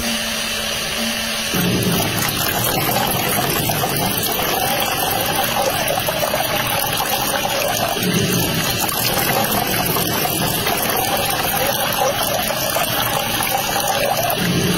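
A stream of water pouring and splashing into a shallow foil tray of water, fed from a toy syringe pump. The steady splashing starts about a second and a half in.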